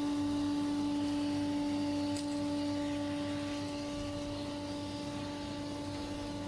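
Scheppach dust extractor running with a steady hum while it draws through a narrow 3-inch pipe and hose. The restriction leaves the machine not happy: it is labouring. The sound eases slightly about two seconds in.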